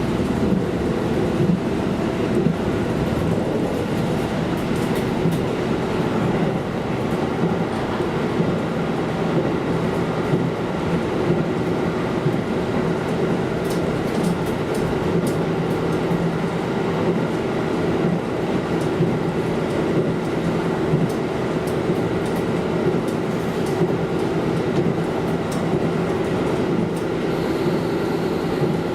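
KiHa diesel railcar running steadily along the line: an even engine drone over the rolling noise of wheels on rail.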